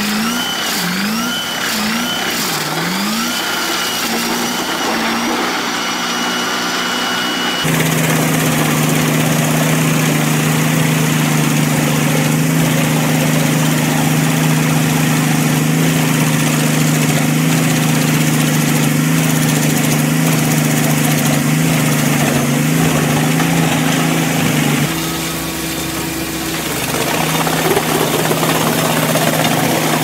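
Large wood chippers' engines working. At first the engine's pitch sweeps up again and again in short climbs while a stump goes into the feed rollers. After a sudden change, a big truck-mounted drum chipper runs with a steady hum that drops and changes briefly near the end before coming back.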